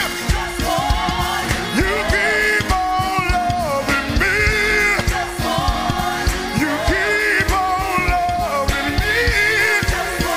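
Live gospel praise-break music: a band plays a fast, driving beat under a lead singer and backup singers, who sing long held notes into microphones.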